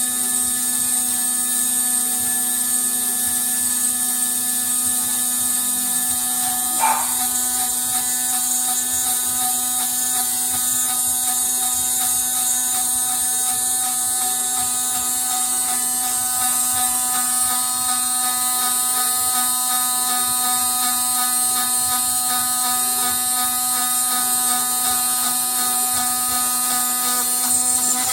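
Homemade CNC machine's small electric motors running with a steady electric whine and hum, and a single click about seven seconds in.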